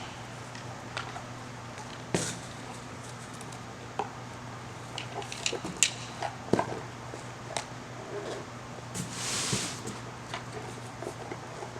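Parts of a Pitchers' Plank pitching trainer being handled and fitted together by hand: scattered light clicks and knocks of the connectors going onto the plank pieces, with a short rustling scrape about nine seconds in. A low steady hum runs underneath.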